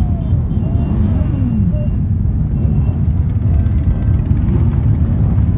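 Many motorcycle engines running at low speed in a slow-moving procession, making a dense, steady low rumble.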